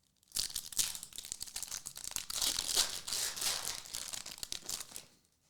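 Foil wrapper of a Panini trading card pack crinkling as it is torn open and handled, a steady crackle that stops shortly before the end.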